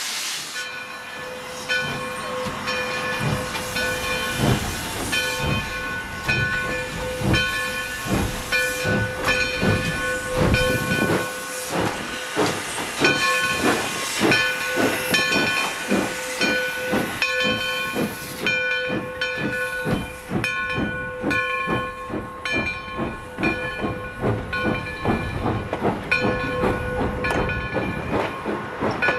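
Alco 2-8-0 Consolidation steam locomotive No. 60 working: a hiss of steam, then from about a second in a steady run of exhaust chuffs, about two a second. A steady chord of several notes is held over the chuffs throughout.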